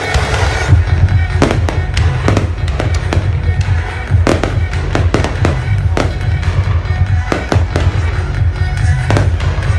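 Fireworks exploding in a steady string of sharp bangs, about one or two a second, over a continuous low rumble.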